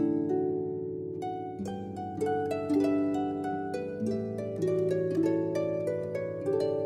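Soft instrumental background music: a slow melody of ringing notes, about two a second, over lower sustained notes.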